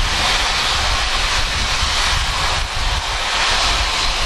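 Steam locomotive 'Duchess of Sutherland', an LMS Princess Coronation Class 4-6-2, gives off a loud hiss of steam that swells and eases about once a second over a low rumble.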